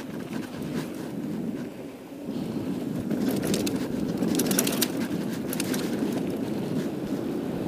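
Mountain bike rolling fast down a dirt singletrack: a steady tyre-and-wind rumble that gets louder about two seconds in, with a burst of sharp clicks and rattles from the bike and loose stones in the middle.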